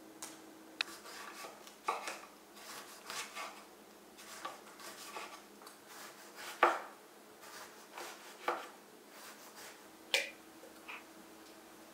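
Kitchen knife slicing lemons on a wooden cutting board: a series of irregular short knocks and cuts. Near the end, lemon slices are set down into glass jars.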